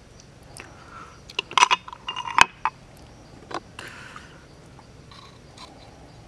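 A quick run of sharp clicks and clinks about a second and a half in, as a wooden stick works against a hard snail shell to pry the meat out, followed by a few softer taps.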